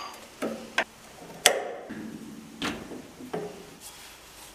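A handful of sharp metallic knocks and clinks, about five in four seconds and the loudest about a second and a half in, each with a short ring. It is an aluminium workpiece being handled at a stopped metal lathe.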